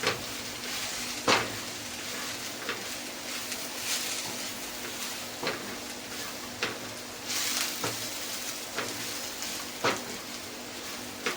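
Onion, bitter-gourd peels and spice powders frying in oil in a pan, a steady sizzle as the mixture is stirred gently, with sharp clicks of the stirring utensil against the pan every second or two.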